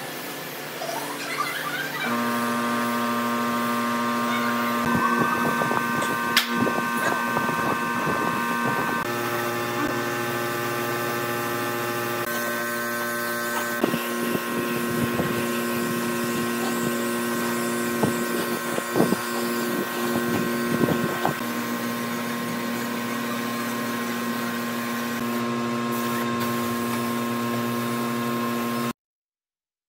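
Compressed-air spray gun spraying wood finish: a steady hiss of air and atomised finish over a steady mechanical hum, with short irregular bursts as the trigger is worked. It cuts off abruptly near the end.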